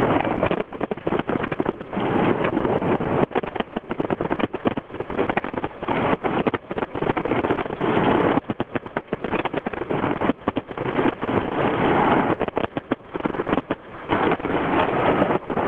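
Fireworks display: a dense run of rapid crackles and bursts, mixed with wind buffeting the microphone.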